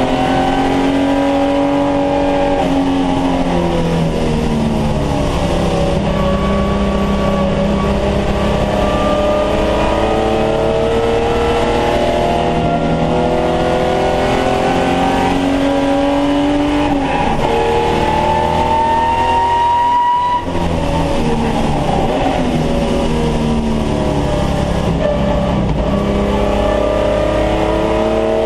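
Holden VT Commodore's V6 engine under race load, heard from inside the cabin, its revs rising and falling through gear changes. A long climb in revs ends in a quick upshift about twenty seconds in.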